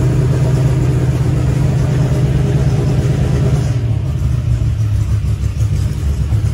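An engine running steadily with a strong low hum. About four seconds in, the hum weakens into a rougher rumble.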